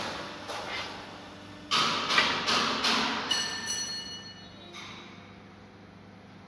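Metal being handled on a steel workbench: a knock at the start, then a couple of seconds of clattering and scraping, and then a short metallic ring that fades away over about a second.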